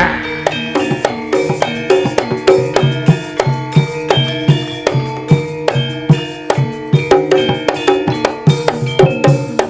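Live Javanese gamelan playing for a jaranan dance: fast, even kendang hand-drum strokes over ringing struck metal keys.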